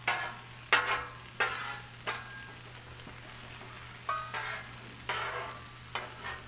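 Sweet potato chunks sizzling in oil on a Blackstone steel flat-top griddle. Metal spatulas scrape and clack against the griddle as they turn the pieces, with four sharp strokes in the first two seconds and a few softer ones later.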